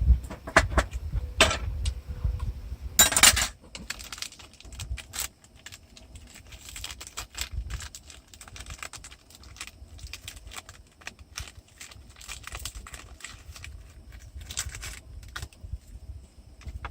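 Small metal items jangling and clinking, with a louder, denser rattle about three seconds in and scattered light clicks after it.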